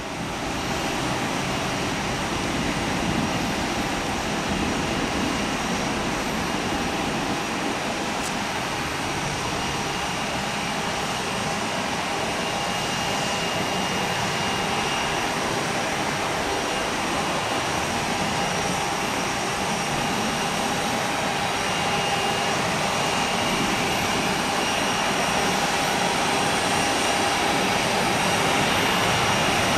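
Boeing 757-200 jet engines: a steady rush with a whine of steady tones over it as the airliner approaches, lands and rolls out, growing a little louder toward the end as reverse thrust spools up on the rollout.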